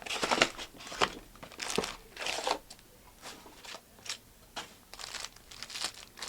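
Foil trading-card pack wrappers crinkling and tearing as packs of Panini Select basketball cards are handled and ripped open, in a string of short, irregular crackles.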